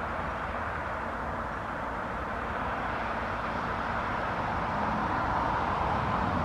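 Steady road noise from passing traffic, a tyre-and-engine hiss that grows louder near the end.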